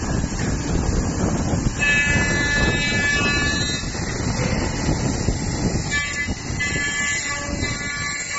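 CNC dovetail tenoning machine running and cutting wood: a continuous dense rumble of motor and cutter noise, with several steady high-pitched whining tones that come in about two seconds in and shift about six seconds in.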